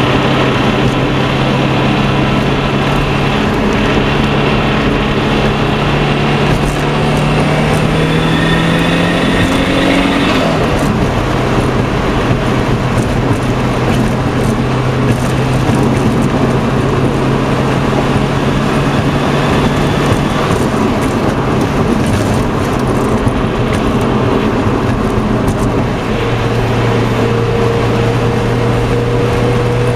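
Turbocharged Subaru Forester (SF5A) engine pulling under load, rising in pitch for about ten seconds, then dropping sharply at a gear change and running steadily. Under load there is a slightly high-pitched sound, which the owner thinks is the intercooler drawing in air through a leak somewhere, along with bad rattling.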